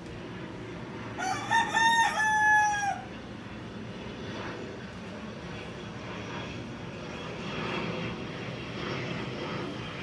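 A rooster crows once, a little over a second in: a short pitched crow lasting under two seconds, ending on a long held note that falls away. In the second half a faint, steady drone of a distant aircraft builds in the background.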